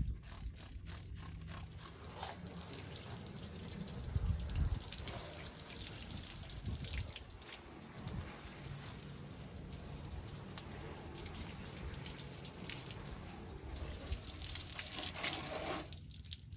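Liquid degreaser being sprayed over a car's engine bay: a run of quick clicks in the first couple of seconds, then a steady hissing spray.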